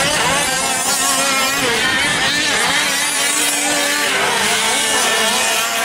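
Several 1/5-scale gas RC trucks' small two-stroke engines buzzing and revving up and down at different pitches, overlapping one another.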